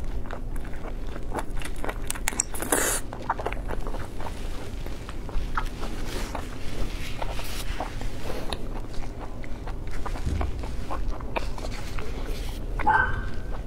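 Close-up eating sounds: wet lip smacks, sucking and chewing on cooked prawn, with one louder slurp about three seconds in.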